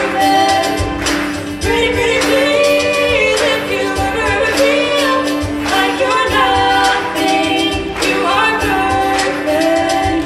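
Female show choir singing a pop ballad, lead voices on microphones over the blended group, with band accompaniment keeping a steady low beat.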